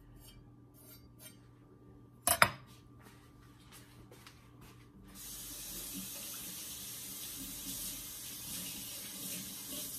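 A chef's knife set down on a wooden cutting board with a sharp clack about two seconds in. About five seconds in a kitchen tap starts running steadily for hand rinsing, and it is shut off near the end.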